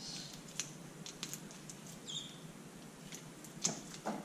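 Faint, scattered light clicks and taps from handling small metal engine parts, with one short high squeak about two seconds in.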